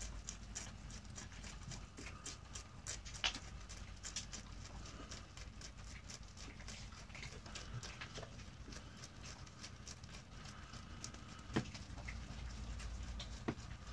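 Mini Rex rabbit chewing fresh Italian parsley: a rapid, irregular run of small crunching clicks, with a few sharper clicks about three seconds in and near the end.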